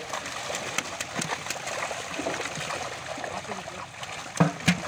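Live fish thrashing in a net crowded into shallow water, with continuous splashing and water trickling, and two sharper, louder splashes near the end.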